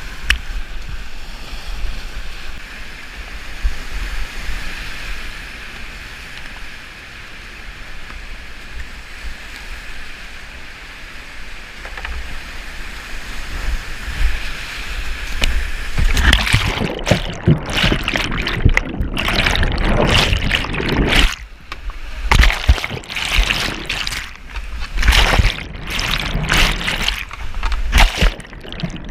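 Whitewater river rushing steadily, then, about halfway through, loud choppy splashing and gurgling of water close around a kayak running through rapids.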